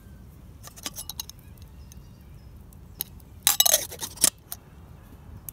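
Metal camping kettle and pots clinking as they are handled: a few light clinks about a second in, then a louder burst of metallic clattering around three and a half to four seconds in.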